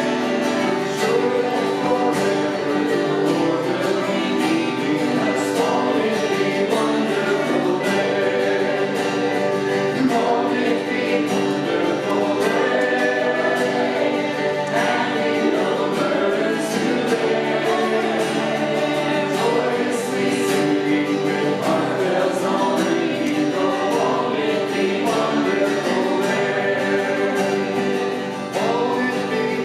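Several voices singing a gospel hymn together with instrumental accompaniment.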